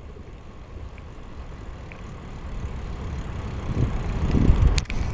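Low rumbling road noise that grows louder over the last couple of seconds, with a single sharp click near the end.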